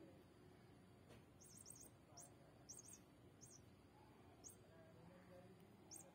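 Faint, quick high-pitched chirps, singly and in short runs of two or three, scattered through.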